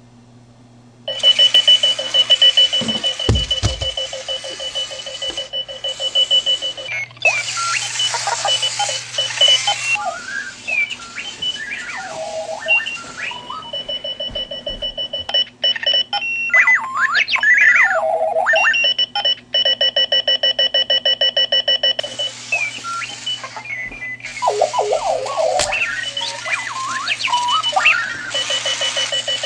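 Clocky two-wheeled running alarm clock going off about a second in: a loud, random robot-like alarm of steady high beeps, rasping tones and warbling, gliding chirps, coming and going with brief pauses. A few low thumps sound about three seconds in.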